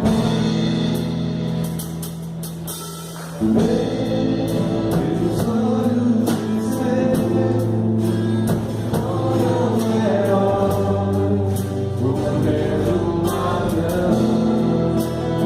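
Gospel song played on several acoustic guitars with a group of voices singing, quieter at first and turning fuller about three and a half seconds in.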